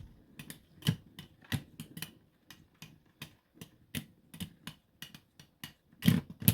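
Two 3D-printed Beyblade tops spinning down in a plastic stadium and knocking against each other in sharp irregular clicks, about two or three a second, as the battle comes down to stamina. A louder rattle comes near the end.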